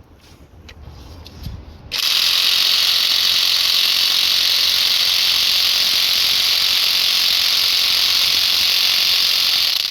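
Half-inch impact wrench run by its trigger, a loud, steady mechanical rattle that starts suddenly about two seconds in and stops abruptly about eight seconds later.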